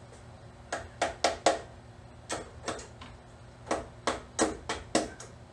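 A rubber hammer tapping the connecting-rod cap bolts of an LS V8. The sharp, ringing taps come in quick groups of three or four, starting about a second in. The light blows knock the rod cap loose from its press-fit dowels, and the tone of the taps changes as the cap separates.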